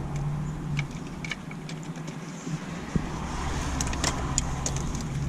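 Wiring being pulled through plastic dash trim by hand: scattered light clicks and rustles over a low steady rumble.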